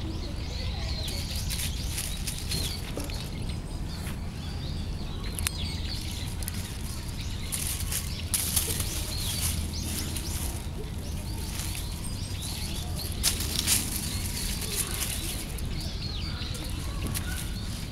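Dry fallen leaves rustling and crackling as a cat rolls and paws in them, with louder bursts about eight seconds in and again near thirteen seconds.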